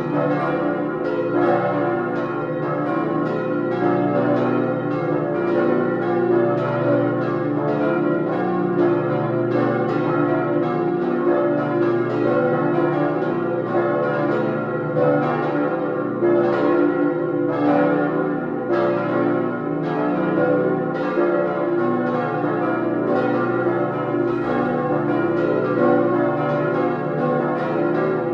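Full peal of cast-steel church bells swinging together, their strikes overlapping irregularly a few times a second over a steady, dense hum of ringing tones.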